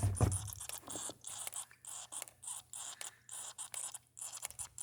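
Water barrels making irregular scraping, crackling noises, opened by a low thump.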